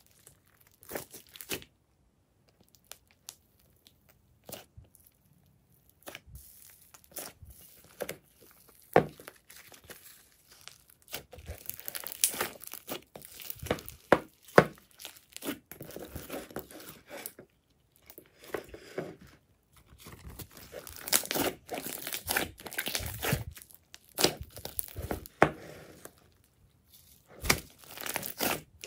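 Hands stretching, folding and kneading glossy slime, giving sticky crackles, clicks and squelches. Sparse at first, denser and louder from about a third of the way in.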